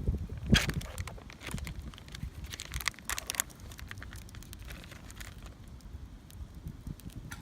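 Plastic snack packaging being torn open and crinkled in the hands, in short rustling bursts about half a second in and again around the middle.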